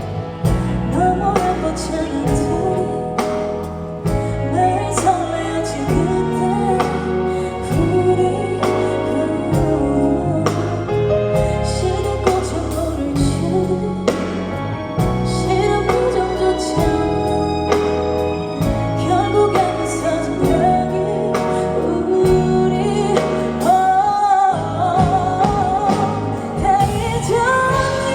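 Live band playing a pop ballad, with bass and a steady beat, and a singer's voice over the music that comes forward near the end.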